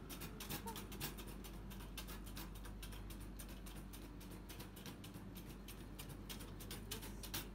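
Faint, irregular taps and clicks of footsteps on a tiled floor, several a second, over a low steady hum.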